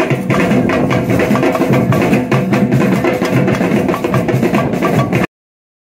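A street drum group playing a fast, dense rhythm on shoulder-slung snare drums and other drums. It cuts off suddenly near the end.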